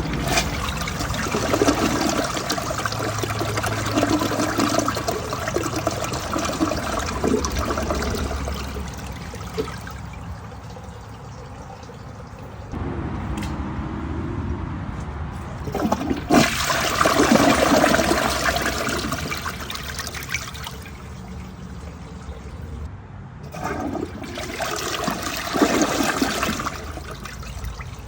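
Toilet flushing: a loud rush of water for several seconds, easing to a quieter running flow, then surging strongly again about halfway through and once more near the end.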